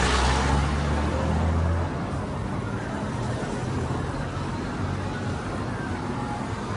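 Road traffic: motor vehicles running along a street, with a deep steady engine hum for the first two seconds that then drops away, leaving a steady traffic noise.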